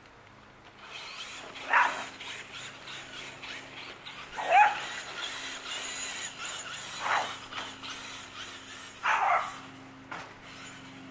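A dog barks four times, roughly every two and a half seconds. Under the barks an electric Traxxas Slash RC car with a brushless motor makes a steady, busy noise as it drives across the grass, with many small clicks in it.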